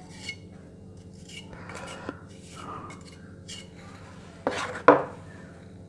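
Wet wall putty being scooped from a container and worked with a small metal hand tool: light scrapes and clinks, with two louder knocks close together near the end.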